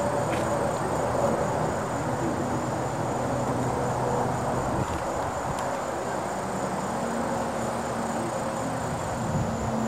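Steady outdoor background: a low rumbling haze with faint hums, under a continuous high insect drone such as crickets.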